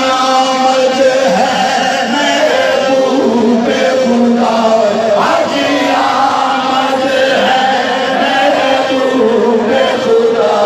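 A large crowd of men chanting together in unison, many voices overlapping in a steady, loud chorus.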